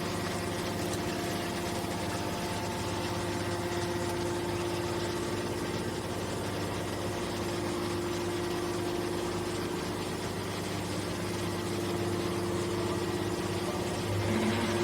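Y81/T-4000 hydraulic metal baler running, a steady droning hum from its hydraulic power unit with several constant tones, growing a little louder near the end.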